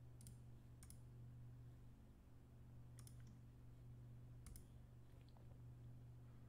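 Near silence, with a handful of faint, sharp computer clicks spread through it over a low steady hum.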